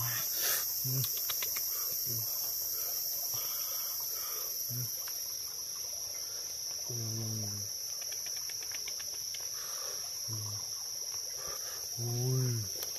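Steady high-pitched insect buzzing throughout, broken by short low calls every second or two, the longest about seven seconds in.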